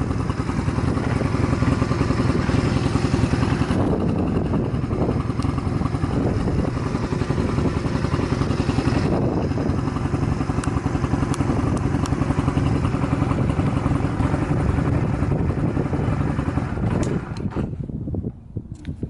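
Honda Rebel 250 (MC13) parallel-twin engine running steadily. Near the end the higher part of the sound drops away, leaving a low rumble.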